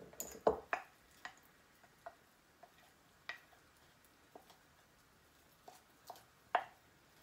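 Wooden spoon stirring a thick flour-and-water paste in a glass jar, mixing a new sourdough starter. The spoon knocks against the glass in irregular, uneven clicks, the loudest about half a second in and again near the end.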